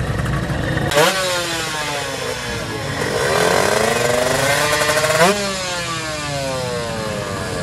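Motorcycle engine being revved hard twice: the revs shoot up about a second in and die away slowly, then climb for about two seconds before the throttle is snapped shut and they fall away again.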